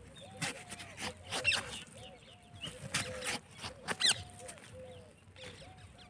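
Sharp cracks and clicks of a knife splitting a watermelon's rind, over a short rising-and-falling call repeated about twice a second.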